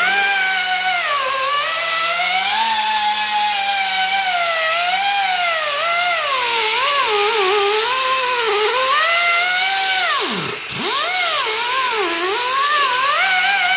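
Pneumatic air sander whining as it grinds rust off a brake rotor, its pitch wavering constantly as it is pressed onto the rotor and dipping sharply about ten seconds in before picking back up.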